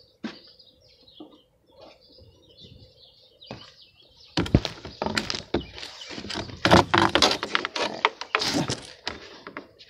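A car's plastic cover being picked up and handled for refitting: faint scattered clicks at first, then from about four seconds in a dense run of knocks and rattles.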